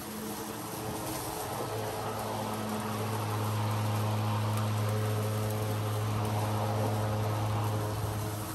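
STIHL battery-powered push mower running through thick, overgrown grass: a steady electric hum from the spinning blade over the hiss of cut grass. It grows louder as the mower passes close by, then eases off near the end.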